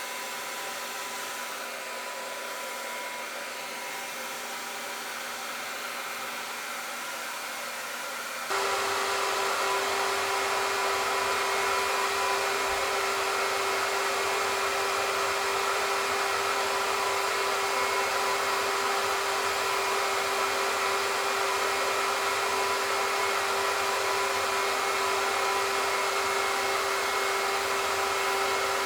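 A small electric blower motor running steadily with a constant hum. About eight seconds in it abruptly gets louder, with a stronger steady tone, and runs on evenly from there.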